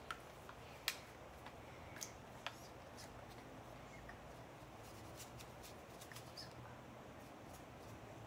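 Faint clicks and taps of small makeup items being handled quietly, with a few sharper clicks in the first two and a half seconds and softer ticks after, over quiet room tone.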